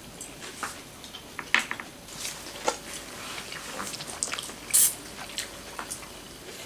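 Scattered light clicks and clinks of tableware and eating at a meal, with one sharper clatter near the end.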